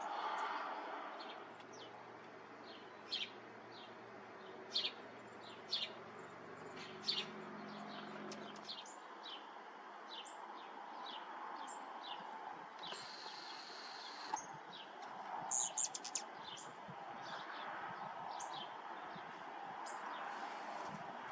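Rufous hummingbird giving sharp, high chip calls, dozens of them scattered irregularly, over a faint steady hiss. A brief high buzz comes about two thirds of the way through.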